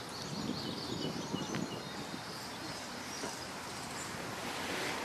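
Outdoor park ambience: a steady background hiss with scattered faint bird chirps.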